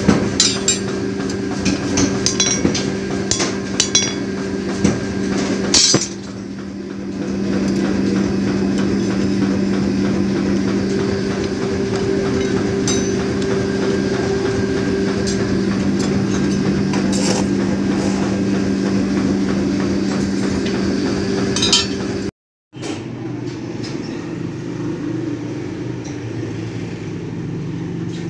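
Hand hammer striking steel blade blanks on an anvil, a run of sharp metallic clinks over the first several seconds. Under and after the strikes a loud, steady machine hum runs on, drops out briefly near the end, then returns quieter.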